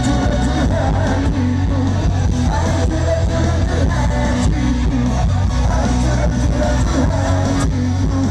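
Live rock band playing: a lead vocalist singing over electric guitars, bass and drums, with a heavy, booming low end.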